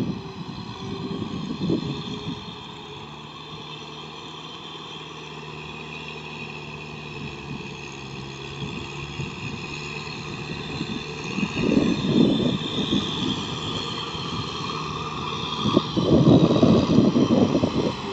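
Kubota M6040SU tractor's four-cylinder diesel engine running steadily while it pulls a rotary tiller through a flooded, muddy paddy, coming closer. Louder rough bursts come about twelve seconds in and again near the end.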